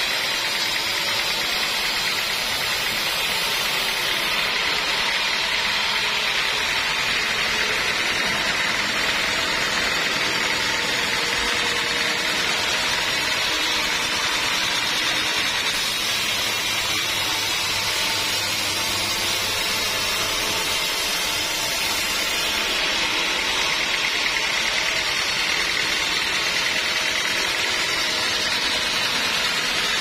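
Homemade band sawmill running steadily, its blade cutting lengthwise through a teak log.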